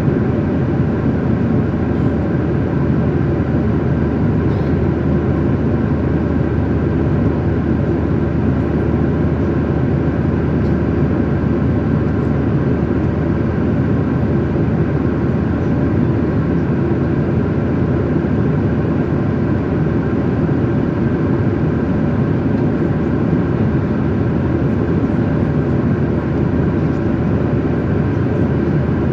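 Steady jet airliner cabin noise: engine and rushing-air sound heard from inside the passenger cabin, even and unchanging throughout.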